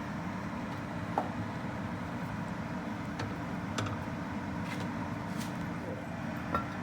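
Steady low kitchen hum with a few faint clicks and light knocks scattered through it.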